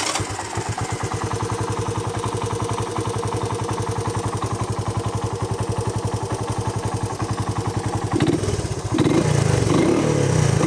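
Honda TRX125 ATV's small single-cylinder four-stroke engine running with a fast, even firing beat, running a little better on new Tygon fuel lines. About eight seconds in it gets louder and its pitch rises and falls.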